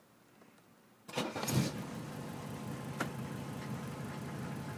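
Mercedes-Benz 300SD's five-cylinder turbodiesel starting from cold: after about a second of near silence it cranks briefly, catches at once and settles into a steady diesel idle. This is the idle on its old, worn injector nozzles, before a rebuild.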